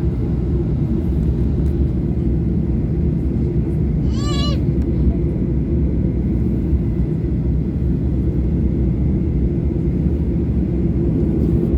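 Steady, loud rumble of a Boeing 737-800's CFM56 jet engines and airflow heard from inside the passenger cabin. About four seconds in there is a short high-pitched voice, such as a passenger's squeal.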